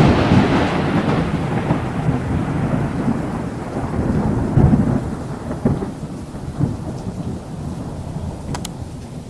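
Thunder: a long, rolling rumble that is loud at first and slowly fades over several seconds, swelling again now and then, over a steady hiss of rain.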